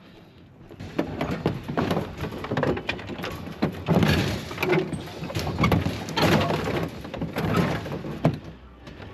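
Heavy kerbside scrap being lifted and handled, making a run of knocks, thuds and clattering that starts about a second in.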